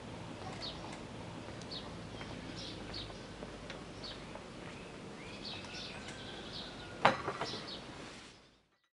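Small birds chirping over a steady outdoor background hum. A sharp knock about seven seconds in, followed by a few lighter knocks, is the loudest sound, and then everything fades out.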